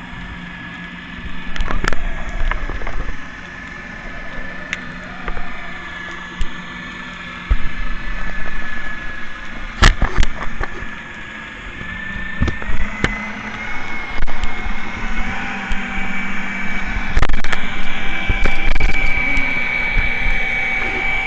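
Boat engine noise heard underwater: a steady whine that steps up in pitch about halfway through, over a low hum, with scattered sharp clicks and knocks.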